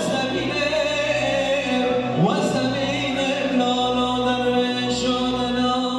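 A male voice sings an uzun hava, a free-rhythm Turkish folk song, in long held notes over electronic keyboard accompaniment. The sound slides steeply up in pitch twice: at the start and about two seconds in.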